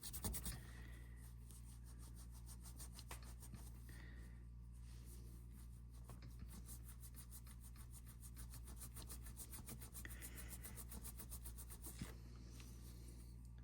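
Faint rubbing of a wet melamine foam cleaning sponge scrubbing a watch's resin strap, over a low steady hum.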